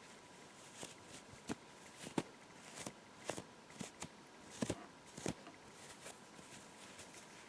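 Long hair being stroked close to the microphone: about a dozen quick swishing strokes with sharp crackles over some five seconds, then they stop.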